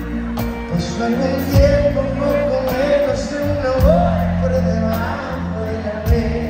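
Live regional Mexican band music with singing: a sung melody over held bass notes and the band's steady accompaniment.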